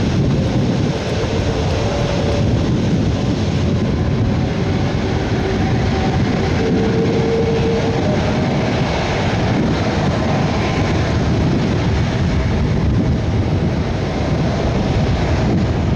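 Airbus A330 MRTT tanker's twin Rolls-Royce Trent 700 turbofans running at taxi power as the jet rolls past: a steady loud rumble with a faint whine.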